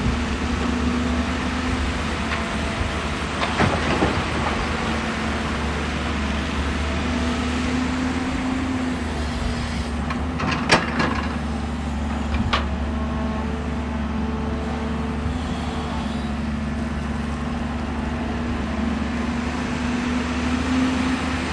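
JCB JS205 excavator's diesel engine running steadily under working load, its pitched note swelling now and then. A few sharp knocks come through, the loudest about halfway.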